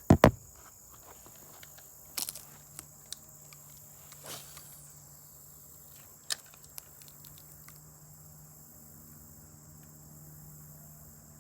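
Fishing rod and reel handled through a cast and retrieve: scattered sharp clicks and knocks, the loudest right at the start and a few more over the next six seconds, over a faint steady background.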